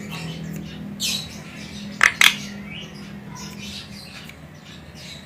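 Javan myna (jalak kebo) calling: a short harsh call about a second in, then two loud harsh calls in quick succession just after two seconds, with softer chattering notes between.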